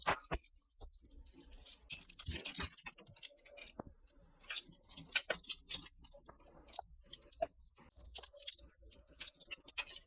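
Irregular light clicks, taps and rustles of small hardware and packaging being handled, close up, over a low background hum.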